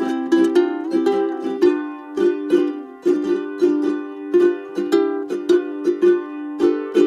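Instrumental background music: plucked strings strummed to a steady beat, about two strokes a second.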